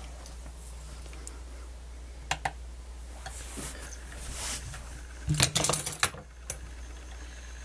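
Screwdrivers being picked up off a workbench: a few light clicks, then a quick, loud run of sharp clicks and knocks about five seconds in, over a steady low hum.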